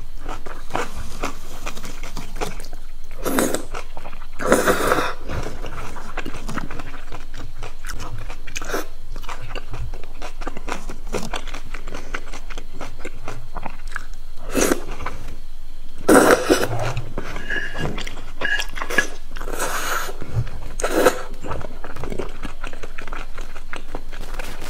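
Close-miked chewing and crunching of crispy Korean fried food, with many small crackles and a few louder bites.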